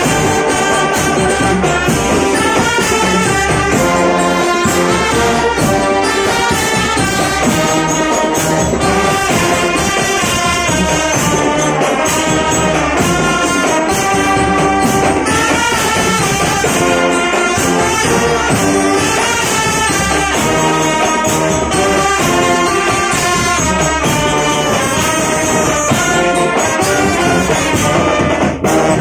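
Indonesian drumband playing live: a row of trumpets and other marching brass horns carrying the melody together over marching percussion.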